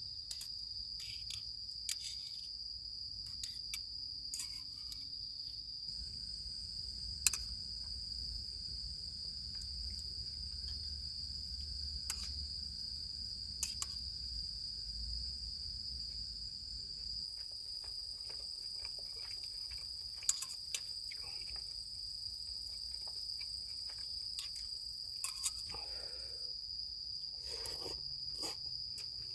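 Crickets chirring as a steady high-pitched insect chorus, with scattered small clicks and knocks throughout.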